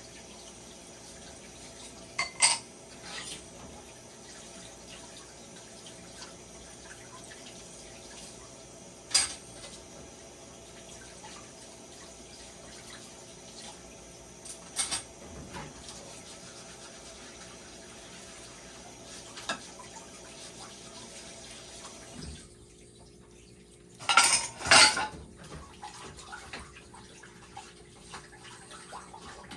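Dishes and cutlery clinking at a sink with the tap running. The running water stops near the end, followed by a couple of loud clatters.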